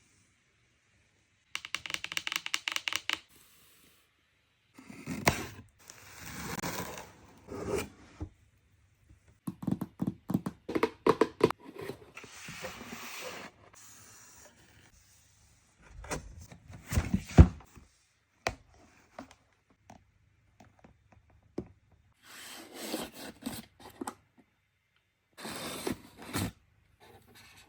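Packaging being opened and handled: a quick run of clicks near the start, then bursts of scraping, rustling and tearing of cardboard and plastic, with a few knocks, the loudest about two-thirds of the way through, and short pauses between.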